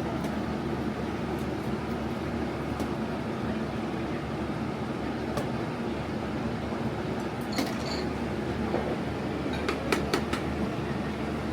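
Restaurant ambience: a steady low hum with a few light clinks, a pair about three quarters of the way through and a small cluster near the end.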